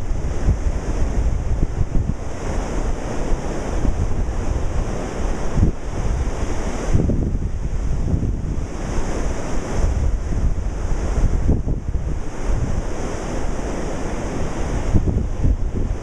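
Ocean surf breaking and washing up the shore, swelling and easing every few seconds, with wind buffeting the microphone in a low rumble.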